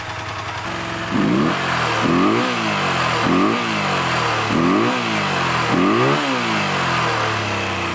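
1986 Honda VF500F Interceptor's V4 engine idling, then revved in five short throttle blips, each rising and falling in pitch. The bike is running again after sitting for a long time with fuel-flooded cylinders.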